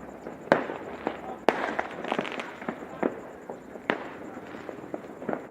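Fireworks and firecrackers going off: scattered sharp bangs and pops, the strongest about half a second, a second and a half, three seconds and four seconds in, with many smaller pops between them.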